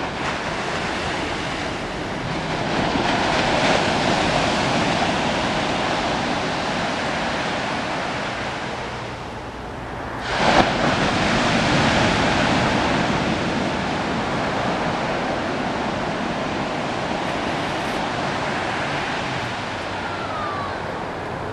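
Ocean surf washing onto a beach, swelling and easing as waves come in, with one louder wave breaking suddenly about halfway through.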